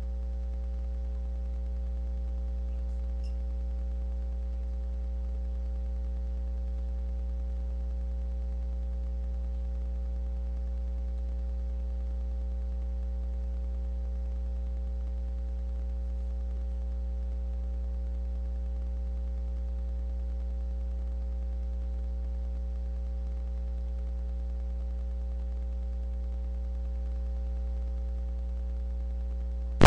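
Steady low electrical hum with a few faint steady tones above it, unchanging throughout, typical of a webcam's microphone picking up mains hum.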